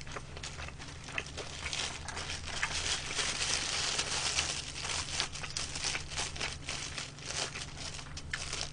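Thin clear plastic disposable glove crinkling and crackling as it is pulled onto a hand, densest in the middle and thinning out toward the end.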